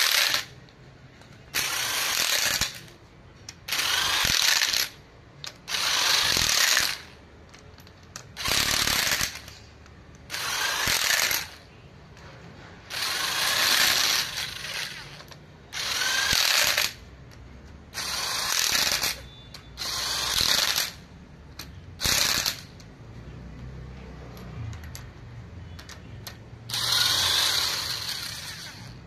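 A power driver runs in the camshaft-cover bolts on a Fiat 1.3 Multijet cylinder head, one bolt at a time. There are about a dozen bursts, each about a second long and spaced a couple of seconds apart, with a short pause before the last two.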